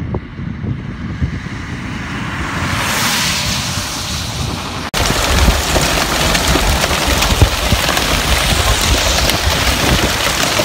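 Wind buffeting the microphone with a rising hiss. After a cut about five seconds in, heavy hail pelts a vehicle: a loud, dense clatter of small hits over wind and road noise.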